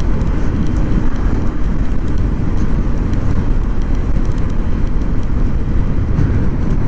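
Steady wind rush and low rumble on the microphone while riding a Honda ADV150 scooter, with the scooter's engine and road noise underneath.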